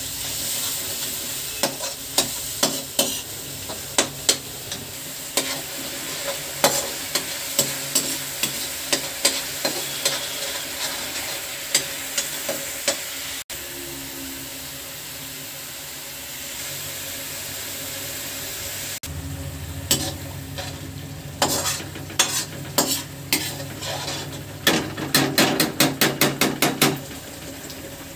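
Spice masala paste sizzling in hot oil in a metal pan while a metal spatula scrapes and knocks against the pan. The strokes come often in the first half, ease off in the middle, then return as a quick run of about five scrapes a second near the end, with a low hum coming in partway through.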